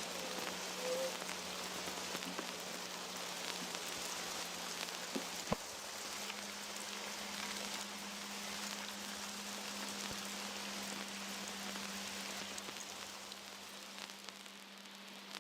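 Steady rain-like hiss with scattered tiny ticks, over a low steady hum. About five and a half seconds in a single click sounds and the hum steps up slightly in pitch. The sound grows a little quieter near the end.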